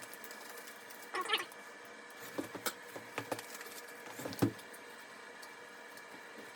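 Nitrile gloves being pulled on: a handful of short rubbery squeaks and snaps, the loudest about a second in and again after about four seconds.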